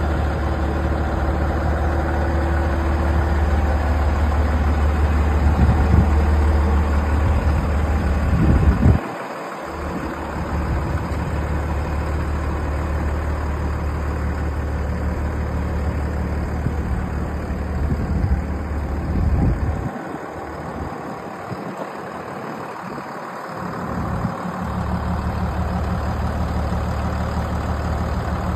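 Heavy vehicle engine idling steadily, with wind rumbling on the microphone that comes in gusts and drops out twice.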